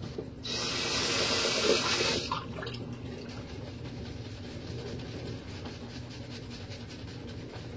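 Water running from a sink tap for about two seconds, then shut off.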